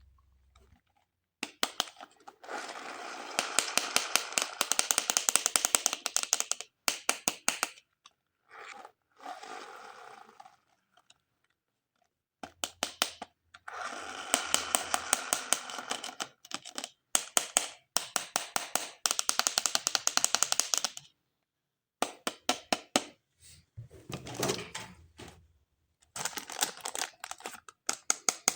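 Hands handling plastic toys and packaging: runs of rapid clicking, crinkling and scraping, several seconds each, that cut off abruptly to silence several times.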